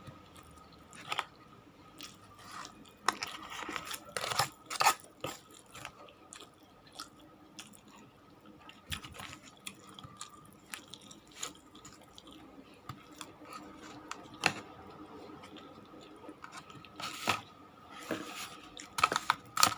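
A person chewing and biting food close to the microphone, with irregular crunches and mouth smacks, over a faint steady hum.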